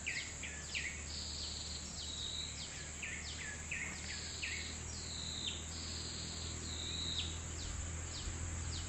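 Birds calling with many short notes that slide down in pitch, repeated again and again, over a steady high-pitched insect drone.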